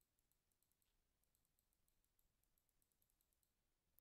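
Near silence: faint room tone with very faint, rapid high ticks.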